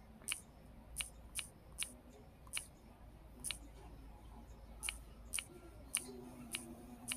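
About ten faint, sharp clicks at uneven intervals: typing letter by letter on a smartphone's on-screen keyboard.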